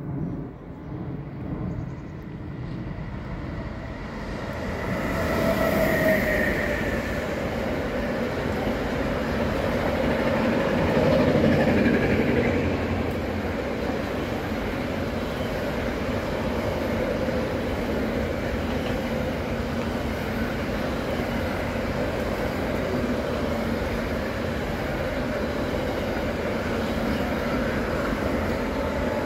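A freight train of double-deck car-transporter wagons rolls through the station. Its steady rumble and rattle of wheels on rail grows louder a few seconds in and is loudest around the middle, then carries on evenly as the wagons pass.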